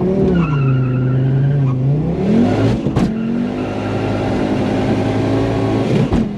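Turbocharged engine of a modified Ford Focus ST revving hard under acceleration, heard from inside the cabin. Its pitch rises and drops sharply as gears change, holds steady, then climbs again. There are short sharp cracks about three seconds in and again near the end.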